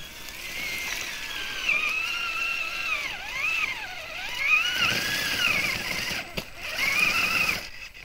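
An electric radio-controlled vehicle's motor and drivetrain whining in snow. The pitch rises and falls as the throttle is worked and dips lowest around the middle. There is a single sharp click about six seconds in, and the whine cuts off just before the end.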